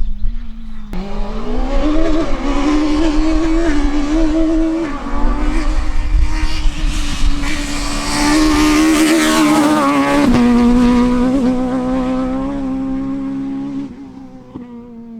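Peugeot 306 Maxi Kit-Car rally car at high revs, its pitch stepping up and down through gear changes and lifts. It comes up suddenly about a second in, is loudest in the middle and fades away near the end.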